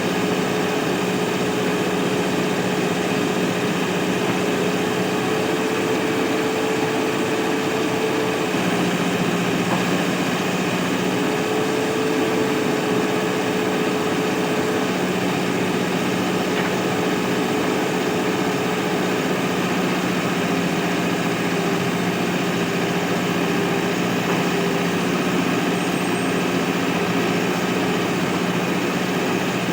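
Diesel engine of a Mahindra backhoe loader running steadily while digging, its pitch shifting slightly a few times as the load on the engine changes.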